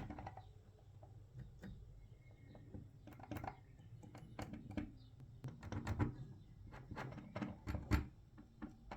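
Plastic Lego Technic pieces being handled and pressed together: irregular light clicks and taps, with a sharper click about 8 seconds in.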